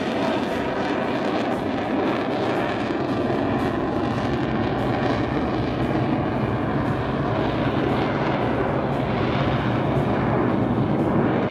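Jet aircraft engine noise from a display jet flying past, a steady, even roar-like rush of sound with a faint shifting whine.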